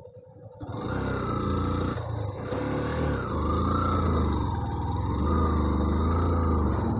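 Motorcycle engine running, coming in loudly about a second in, with its revs rising and falling as it rides.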